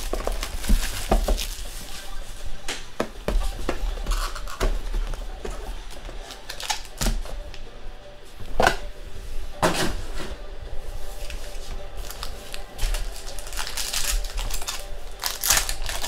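Plastic shrink wrap crinkling and tearing as a trading-card box is unwrapped and opened, then a foil card pack rustling in the hands. Irregular crinkles and clicks, with a few sharper ones about halfway through and again near the end.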